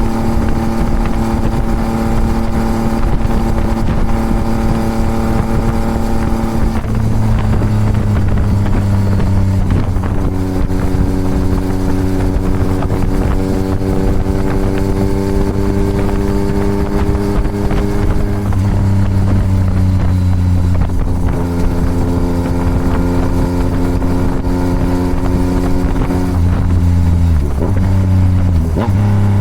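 Yamaha MT-09's 890 cc three-cylinder engine through a Toce full exhaust, running under steady throttle on the move. The note climbs slowly and then drops sharply at each of several gear changes.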